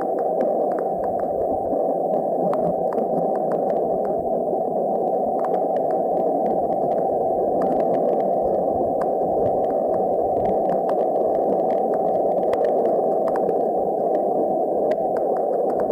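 NASA's 'sound of the Sun' recording, solar measurements turned into audio: a steady, muffled hiss like boiling, with faint scattered clicks.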